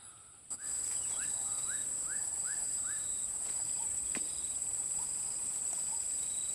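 Steady high-pitched drone of an insect chorus, cutting in abruptly about half a second in. Over it come a series of five short rising chirps between about one and three seconds in, and a single click near the middle.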